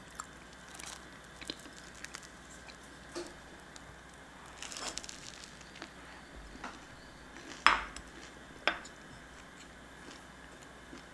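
Quiet table and eating sounds: scattered light clicks of a spoon against a plate while a slice of whole-wheat bread spread with crunchy peanut butter is handled and bitten. Two sharper clinks, a second apart, are the loudest, about eight seconds in.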